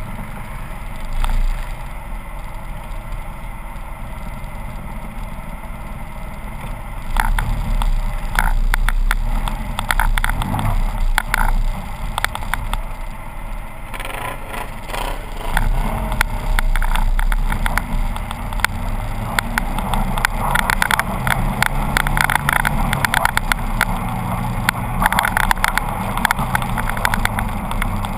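Polaris RZR 800 side-by-side's engine running as it drives down a snowy track, with rattles and knocks from the bumps. About seven seconds in it gets louder, with many sharp clacks, and in the second half the engine note rises and falls with the throttle.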